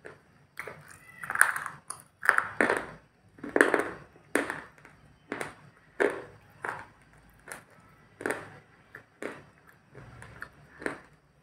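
Close-up chewing of crunchy food: a steady run of crisp crunches and mouth sounds, about one or two a second, louder in the first half.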